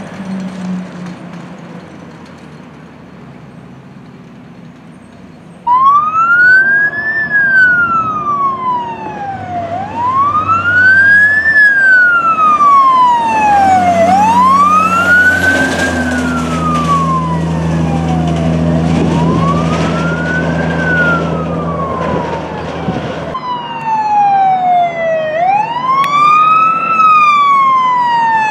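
A fire truck's engine fades as the truck drives away. About six seconds in, a fire truck siren starts wailing loudly in slow rising-and-falling sweeps, each a few seconds long, over the low hum of the truck's engine.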